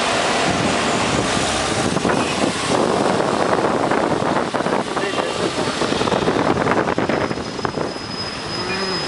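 Road traffic heard from a moving car: engine and tyre noise, with wind buffeting the microphone in irregular gusts.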